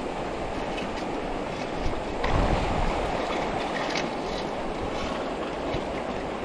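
Shallow mountain stream rushing over rocks, with water churning as a metal rod is poked among the streambed stones; the rush grows louder from about two seconds in.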